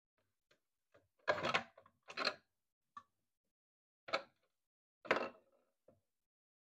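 The plastic cabinet of an Electro Brand 327K portable black-and-white CRT TV being pried apart by hand: a series of short cracks and creaks from the shell and its snap clips, four louder ones among several faint clicks.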